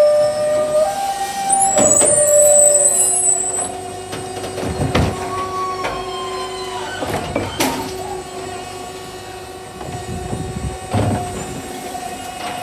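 Electric side-loader garbage truck's automated arm lifting a wheelie bin, tipping it into the hopper and setting it back down. The electric hydraulic drive whines steadily, stepping in pitch as the arm moves, with a hiss early on and sharp clunks as the bin is shaken out and knocks against the truck.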